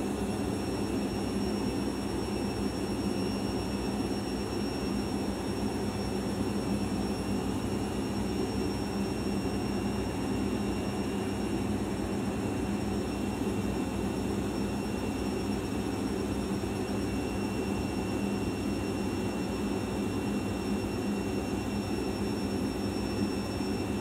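Arçelik 5083 front-loading washing machine running steadily through its wash, the motor humming with a thin high whine as the drum turns the laundry in sudsy water.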